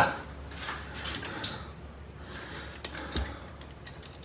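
Small clicks and rustles of wiring being handled by hand as Packard electrical connectors and their insulation are pushed together on a Humvee's fuel cutoff solenoid. There is a sharp knock right at the start and a click and a dull knock a little before three seconds in.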